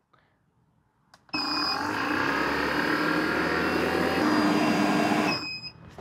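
Self-contained refrigerant recovery machine switched on with a click and a short high beep, then running with a steady whirring noise and low hum as it draws the remaining refrigerant vapour from the AC system. It stops with another short beep near the end.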